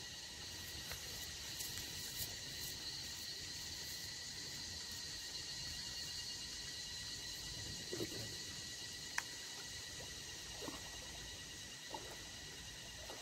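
Faint, steady outdoor ambience: an even hiss with a high, constant drone. A few soft knocks and rustles come in the second half, with one sharp tick a little after nine seconds.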